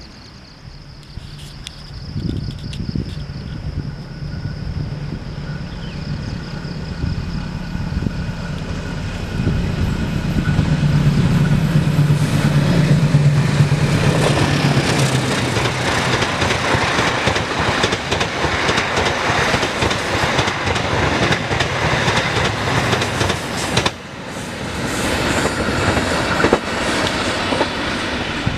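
Diesel locomotive approaching and passing close by, its engine drone building to a peak, followed by the rumble and clatter of the train's cars rolling over the rails. Crickets chirp faintly at the start, and the train sound briefly drops out near the end before resuming.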